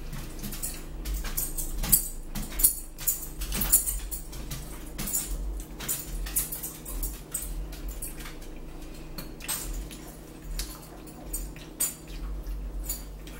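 Eating at a table: forks clicking and scraping against plates and a bowl of spinach salad, with chewing. Under it runs a steady low hum.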